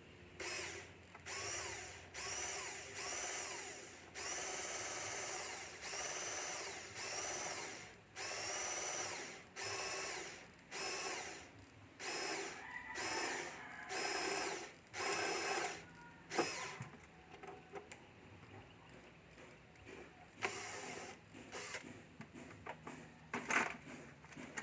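Cordless power drill run in short trigger pulls, each starting with a rising whine. The pulls come in quick succession, some longer, through most of the first part, then a few more near the end, as when driving or backing out screws.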